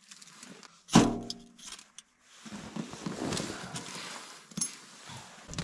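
A Duraflame fire log being lit in a small sheet-metal tent stove: one short, loud sound about a second in, then a steady crackling hiss from about two seconds in as the flame catches.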